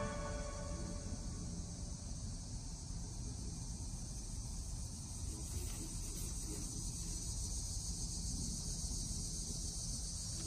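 Steady high chirring of an insect chorus outdoors, with a low rumble underneath; both cut off suddenly at the end.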